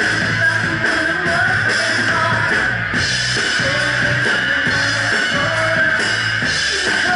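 Live rock band playing loudly: distorted electric guitar, bass and a Ludwig Vistalite drum kit, with a woman singing over them.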